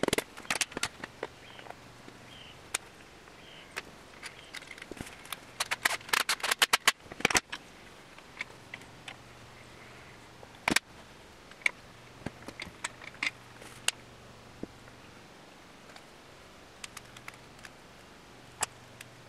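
Scattered sharp metal clicks and knocks as a piston, ring compressor and tools are handled on a bare engine block, with a quick run of about a dozen clicks in the middle.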